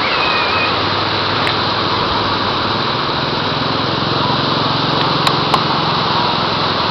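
Typhoon floodwater rushing through a diversion dam: a loud, steady rush of water. A low engine-like hum joins underneath from about halfway through.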